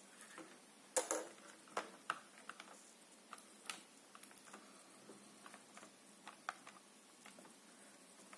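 Light clicks and taps of hard plastic and glass as the clear plastic alignment tray and the tempered-glass screen protector are handled and set in place. The loudest click comes about a second in, followed by scattered small ticks.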